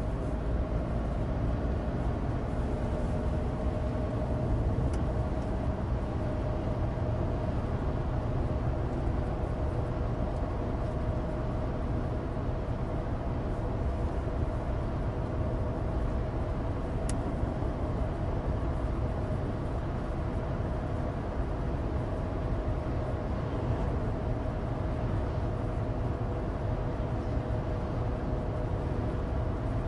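Inside the cabin of a 2016 Suzuki Alto Turbo RS (HA36S) under way: steady low road and tyre rumble from studless winter tyres on dry asphalt, with a steady drone from its turbocharged three-cylinder engine.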